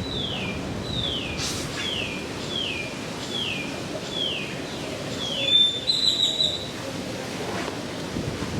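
A bird singing a series of about seven falling whistled notes, roughly one every three-quarters of a second, ending in a higher held note about six seconds in, over a steady background hiss.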